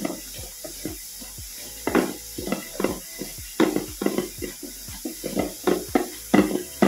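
Caustic soda solution being stirred in a container, the stirring implement scraping and knocking against its sides in an irregular run of strokes.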